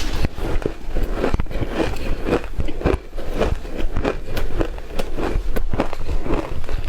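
Shaved ice being chewed, heard close up: an irregular run of crisp crunches, several a second.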